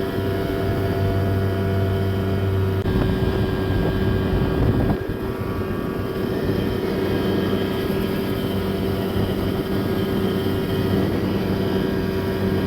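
Small ski boat's engine running steadily at speed over a rushing noise, which grows louder for a couple of seconds about three seconds in.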